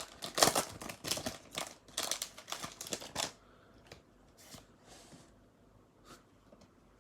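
Foil booster pack wrapper crinkling and tearing as it is opened: a run of loud, rapid rustles for about three seconds, then only a few faint rustles.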